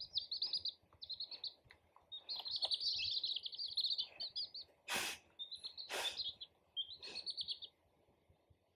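A brood of baby chicks peeping: rapid, high chirps in overlapping bursts that die away near the end, with two or three short, sharp noises in the middle.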